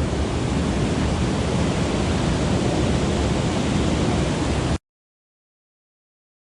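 Steady rush of a mountain stream's flowing water, which cuts off abruptly about three-quarters of the way through into dead silence.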